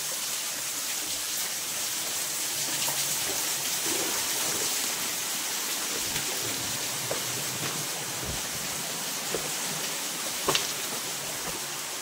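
Steady rush of flowing water from a rocky jungle stream, with a few light clicks near the end.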